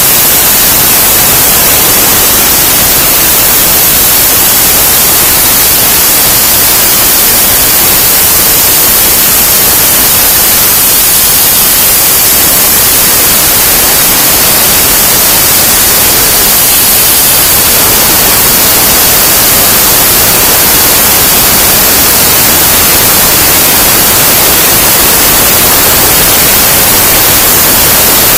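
Plasma torch on a PlasmaCam CNC table cutting through steel plate, beginning with an inside bore: a loud, steady hiss of the plasma arc and gas jet.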